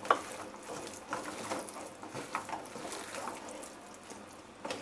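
Hand squeezing and tossing raw chicken pieces in a thick spice-and-flour marinade in a steel bowl: soft, irregular wet squelches and pats.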